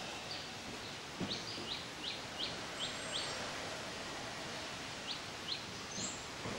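A bird chirping: a run of short rising chirps, about two or three a second, then a few more near the end, over a steady outdoor hiss.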